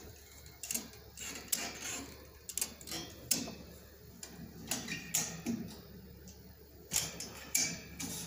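Ratchet strap being cranked tight, its pawl and handle clicking in an irregular run of sharp clicks.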